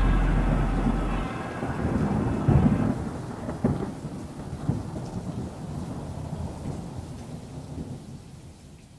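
Thunder rumbling over steady rain, a recorded storm that fades away gradually. A deep held low note cuts off about a second in.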